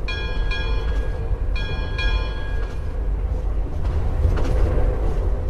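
Recorded train sounds from the Ecotones Sound+Sleep ASM1002 sleep machine's train sound story. A train rumbles low and steady while a train bell rings four times, in two pairs, in the first two seconds.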